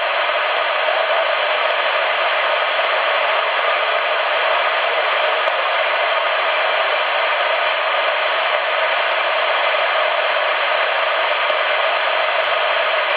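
Steady hiss of band noise from a CRT SS 9900 CB radio's speaker, receiving in upper sideband between transmissions, with no station readable.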